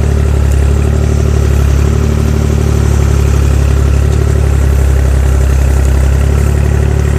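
Fiat-Allis FL4 crawler loader's diesel engine running steadily, driving the hydraulics of a rear-mounted S&C International 60-28 backhoe as the bucket digs into soil.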